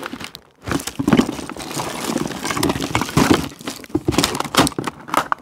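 Plastic tackle packaging crinkling and small items clicking as hands rummage through a fishing tackle box.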